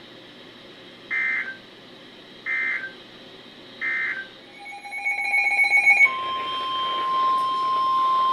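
NOAA Weather Radio alert tones: three short warbling data bursts of the EAS end-of-message code about a second and a half apart, then a brief buzzing sound. About six seconds in, the single steady 1050 Hz warning alarm tone starts, announcing the next warning.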